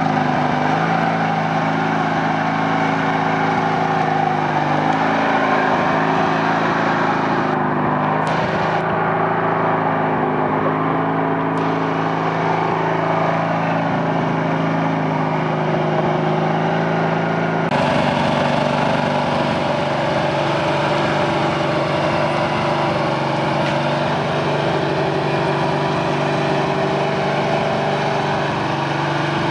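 Craftsman garden tractor engine running under load as it is driven over logs on a trail. Its pitch dips and rises a little, and the sound shifts abruptly a little past halfway.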